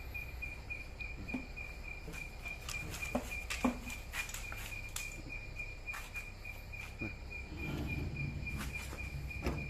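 A cricket chirping steadily in the background, a fast unbroken pulsed trill at one high pitch. A few light clicks and knocks sound over it as the grinder mount on the slide rail is handled.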